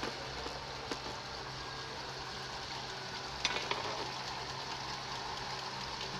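Traub A32 automatic lathe running: a steady motor hum under an even hiss of cutting coolant pouring and splashing over the tool and workpiece. A small click about a second in and a sharper metallic clatter about three and a half seconds in.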